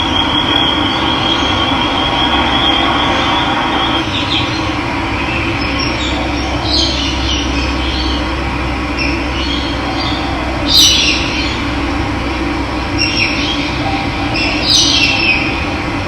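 Running water flowing steadily, with birds calling over it: a high, even trill in the first few seconds, then short chirps every few seconds, the clearest about eleven seconds in.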